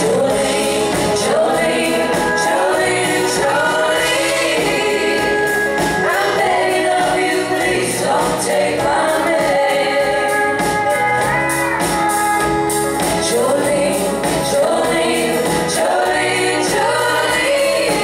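Live band with several women singing together in harmony, over guitars and a drum beat.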